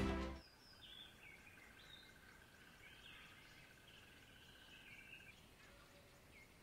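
Faint outdoor ambience with scattered short bird chirps and a thin, steady high tone lasting a few seconds, after the music cuts off at the start.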